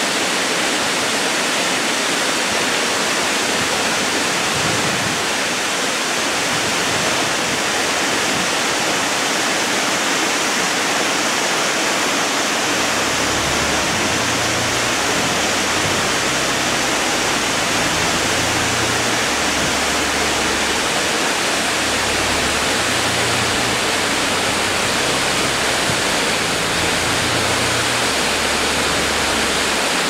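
Waterfall: a steady rush of falling water splashing over rock.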